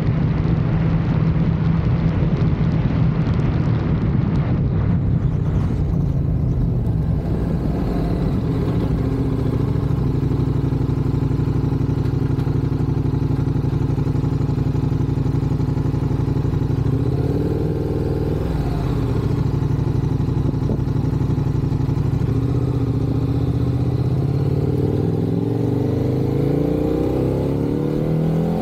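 KTM 1290 Super Adventure S V-twin engine running under way, heard from a camera on the bike, with wind rush on the microphone for the first few seconds. The engine note dips and comes back up about two-thirds of the way in, then climbs steadily near the end as the bike speeds up.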